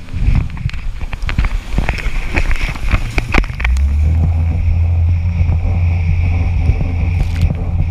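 Jet ski engine running at speed over the sea, with wind buffeting the camera microphone and water spray crackling against it. A little over three and a half seconds in, the engine's steady low drone comes to the fore and holds.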